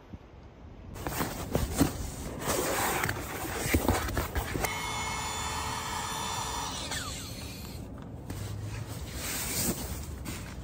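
Rustling of tent fabric and gear, then a small electric air pump whining steadily for about two and a half seconds as it inflates a Nemo Aura sleeping pad, winding down in pitch as it stops. Rustling resumes near the end.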